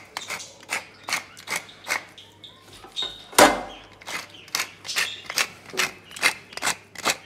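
Wooden pepper mill grinding coarse black pepper: a rasping click about two to three times a second as the top is twisted, with one louder knock about three and a half seconds in.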